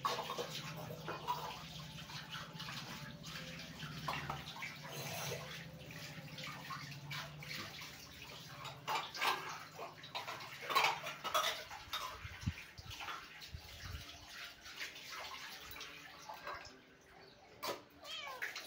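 Water running and splashing, with scattered light clicks and knocks and a low hum in the first few seconds.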